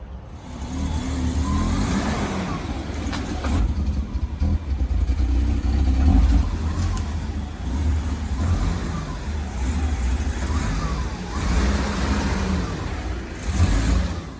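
BMW E30 325iS straight-six engine running as the car is driven onto a lift, the engine note rising and falling with the throttle.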